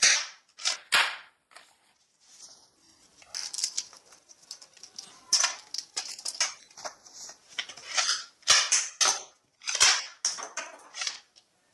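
Toy guns firing: a string of sharp snaps and clacks, irregularly spaced, bunched close together in places.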